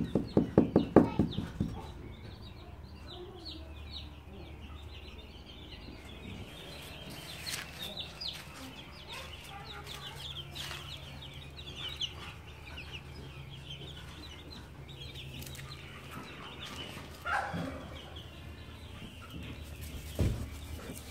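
Chickens clucking, with a quick loud run of clucks in the first two seconds, and chicks peeping in many short high chirps throughout.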